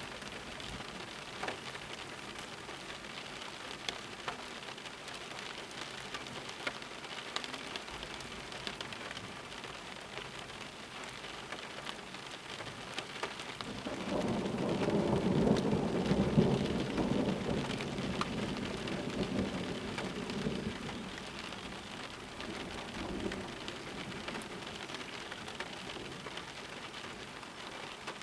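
Steady rain falling, with scattered drops ticking. About halfway through, a long roll of thunder rumbles for some seven seconds and slowly dies away.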